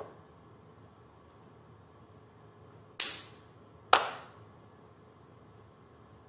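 Hand claps: a faint one at the start, then two sharp claps about a second apart some three seconds in, each ringing out briefly in the hall's reverberation.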